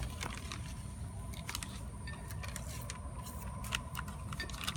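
Faint handling sounds of a sticker being peeled off its backing sheet and pressed onto a plastic toy shop: small scattered clicks and rustles over a steady low background rumble.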